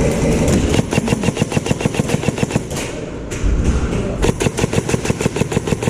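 Airsoft electric rifle firing full-auto, two long bursts of rapid evenly spaced shots: one about a second in, the other in the second half.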